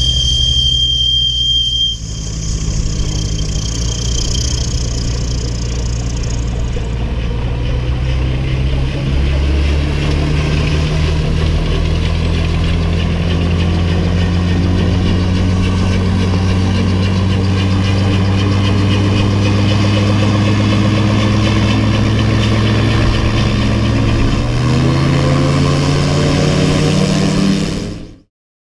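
Gyrocopter's propeller engine running as the aircraft taxis away, with a high steady whine over it for the first two seconds. The engine note climbs slowly, steps up in revs about twenty-five seconds in, and the sound cuts off suddenly near the end.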